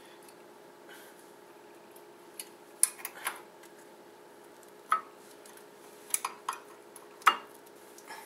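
Light metallic clinks and clicks of steel brake-pad spring clips and pads being handled and fitted at a car's front brake caliper bracket: about seven sharp, separate clinks, the loudest about 3 and 7 seconds in, over a faint steady hum.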